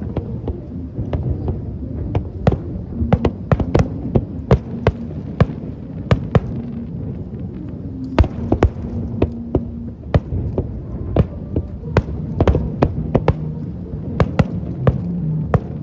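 Fireworks display: a rapid, irregular string of bangs and crackles, several a second, over a steady low rumble.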